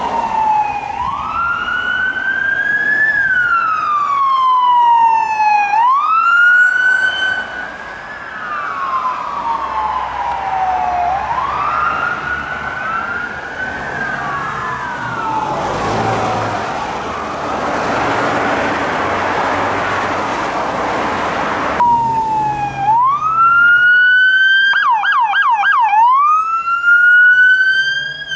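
Police sirens of Ford Police Interceptor Utility patrol cars sounding a wail, the pitch rising and falling every two to three seconds. In the middle the wail fades under road noise, then a second unit's wail switches briefly to a fast yelp before going back to the wail.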